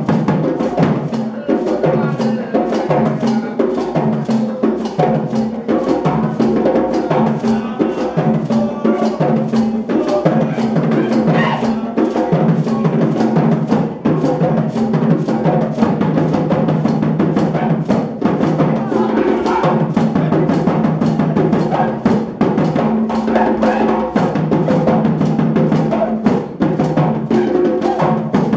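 A live West African hand-drum ensemble of djembe and tall barrel drums plays a fast, dense, steady rhythm.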